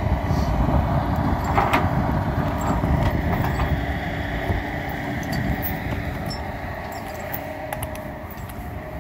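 Flatbed tow truck's engine running steadily with a low rumble, growing quieter over the second half, with a single sharp clink a little under two seconds in.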